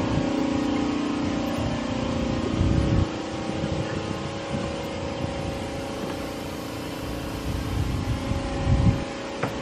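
Steady low mechanical hum with a few constant tones, under an uneven low rumble of wind buffeting the microphone.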